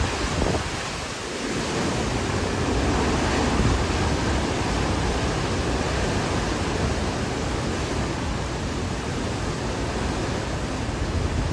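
Hurricane wind blowing steadily, a dense, even rush of noise with no let-up.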